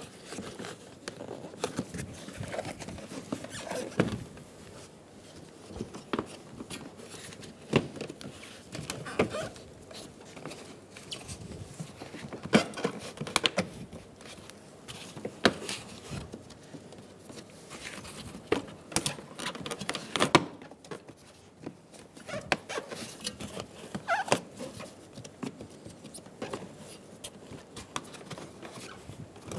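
Plastic grille clips snapping into a 2007-2011 Toyota Camry bumper cover as the grille is pressed into place by hand: irregular clicks, knocks and creaks of hard plastic.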